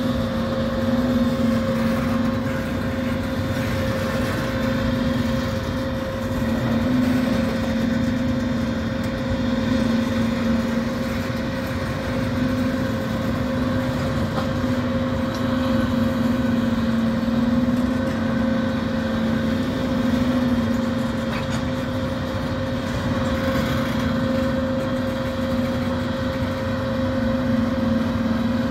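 Freight train of tank cars rolling past at a grade crossing: a steady rumble of steel wheels on the rails, with a continuous droning hum running under it.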